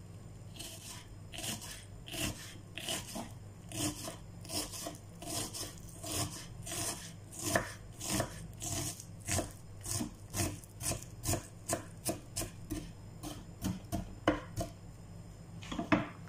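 Kitchen knife dicing a red onion on a wooden chopping board: a steady series of short chopping strokes, about two a second, each blade stroke hitting the board.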